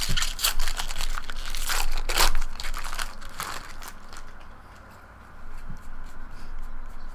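Trading-card pack wrapper crinkling and tearing as it is torn open and handled, in a dense crackly run that is loudest about two seconds in, then lighter handling noise.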